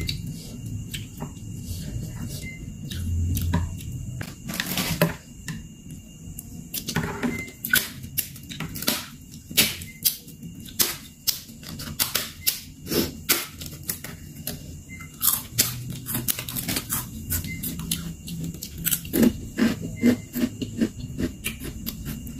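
A large crispy cracker being broken apart by hand into a bowl of soup, with many sharp, irregular crackling snaps.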